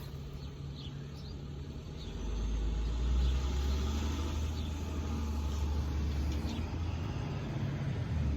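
A motor vehicle's engine rumbling low and steady, coming in about two seconds in over a faint hum.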